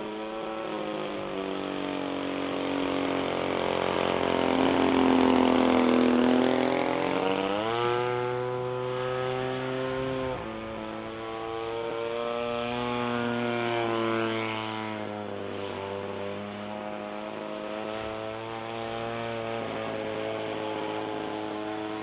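RCGF 20cc two-stroke gasoline engine and propeller of a Seagull Decathlon 120 model airplane in flight, its note rising and falling with throttle and passes. It is loudest about five seconds in. The pitch jumps up sharply near eight seconds and drops back abruptly about two seconds later.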